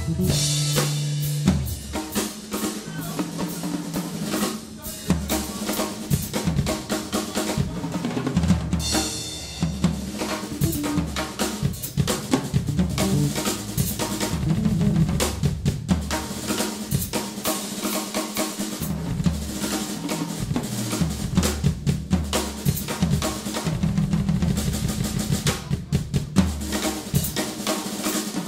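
Acoustic drum kit played as a solo: fast snare rolls and rimshots, tom and bass drum strokes and cymbals. The band's last held guitar and bass chord cuts off about a second and a half in, leaving the drums alone.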